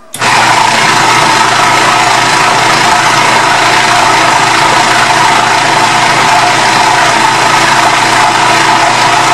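Electric food processor switched on and running steadily at full speed, grinding a thick fish paste with curry paste, egg and flour. A loud, even motor whine.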